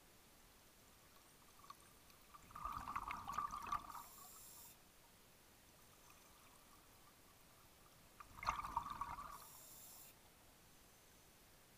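Scuba diver breathing out through a regulator underwater, heard through the camera housing: two bursts of bubbling, each about two seconds long, the first about two and a half seconds in and the second about eight seconds in, each ending with a brief hiss.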